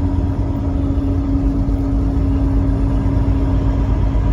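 Road and engine noise inside a moving car's cabin: a steady low rumble with a constant hum that fades near the end.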